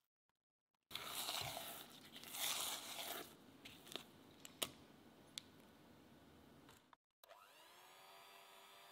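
Silicone spatula scraping and folding thick cake batter in a glass bowl, with a few sharp taps against the bowl. About seven seconds in, a Philips electric hand mixer starts up, its whine rising and then running steadily as it beats the batter.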